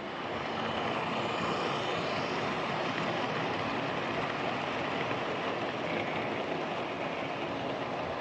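Lima Class 31 OO gauge model diesel locomotive running on its layout track: a steady motor whir at a consistent speed, growing a little louder about a second in.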